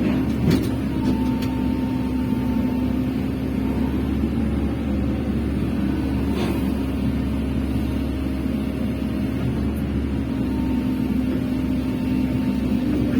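Excavator's diesel engine running steadily, with a thin whine above the engine hum. A few short knocks about half a second, one and a half seconds and six and a half seconds in.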